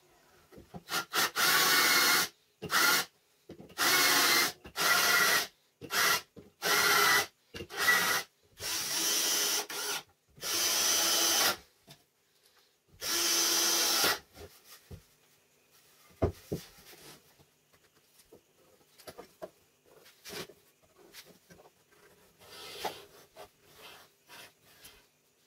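Cordless drill-driver working into wood in about ten short bursts, each half a second to a second long, stopping about 14 seconds in. Faint knocks, handling and pencil scratching follow.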